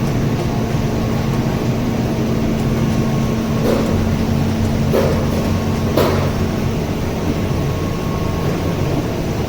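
Steady hum of running machinery, with three light knocks a little over a second apart around the middle.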